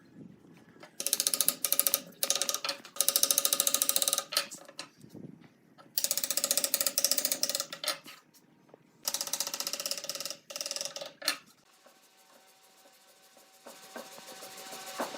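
Rapid ratcheting clicks in about six bursts of a second or so each, from a hand tool's ratchet mechanism. Near the end a small motor starts and runs with a steady pitch.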